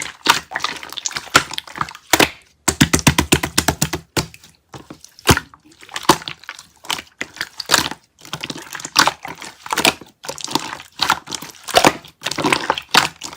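Clear slime being squeezed and pressed by hand, with wet squelches and runs of rapid crackling pops from trapped air bubbles.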